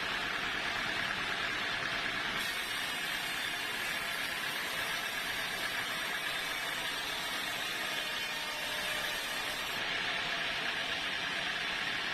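Sawmill saw running steadily with a constant high hum over an even noise. A brighter hiss joins about two seconds in and drops away near the end.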